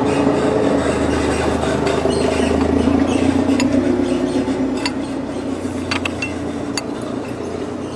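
A motor or engine runs steadily with a pitched drone and a low hum underneath. In the second half, a few sharp metallic clicks sound, the kind a wrench makes against a hydraulic hose fitting.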